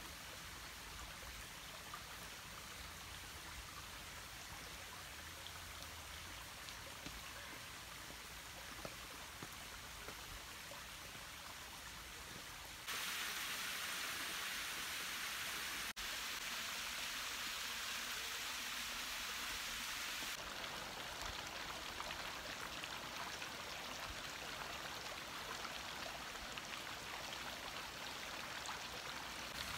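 Shallow stream water trickling over rocks, a steady even rush. It steps abruptly louder about 13 seconds in and a little quieter again about 20 seconds in.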